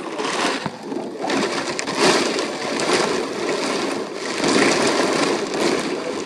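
Storm wind and driving rain, a loud dense rush that surges and eases in gusts.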